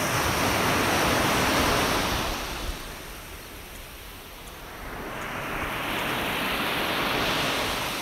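Small sea waves breaking and washing up the beach, in two surges that each swell and fade: the first right at the start, the second building from about five seconds in.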